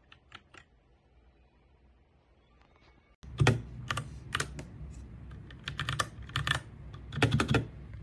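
Keys of an RK61 60% mechanical keyboard being pressed: a few faint clicks at first, then from about three seconds in, louder irregular key clacks over a low background hum.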